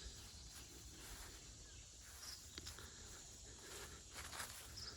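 Faint outdoor garden ambience: soft rustling and a few footsteps of someone walking between crop rows, with a couple of faint high chirps.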